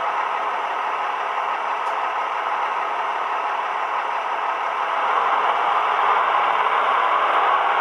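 Sound decoder in a Roco H0 model of a DB class 628.4 diesel railcar playing its diesel engine idling, heard through the model's small onboard speaker with no deep bass. It gets louder about five seconds in.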